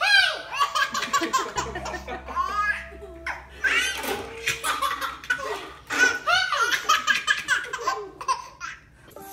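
A baby laughing hard: rapid belly laughs and giggles in three runs, with short breaks for breath.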